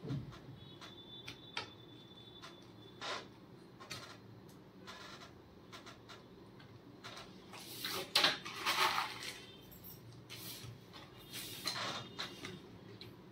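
Small screwdriver working screws out of an opened laptop's internals: scattered light clicks and taps of metal on metal and plastic, with a denser clatter of small parts about eight seconds in.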